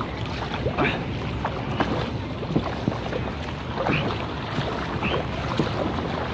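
Kayak paddle strokes: the plastic paddle blades dipping into and pulling through the water, with small splashes and drips about once a second.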